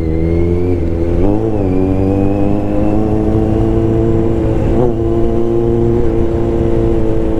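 Kawasaki Z900's inline-four engine running at a steady cruising pitch while being ridden. The note wavers and dips briefly twice, about a second and a half in and near five seconds.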